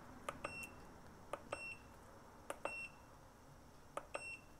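FNIRSI DWS-200 digital soldering station's front-panel buttons being pressed four times, about a second apart, while stepping through its settings menu. Each press gives a soft click and then a short high beep from the station confirming the keypress.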